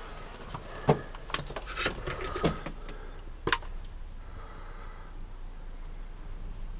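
A scatter of light knocks and clicks, about a dozen in the first three and a half seconds and then quieter, over a faint steady low hum.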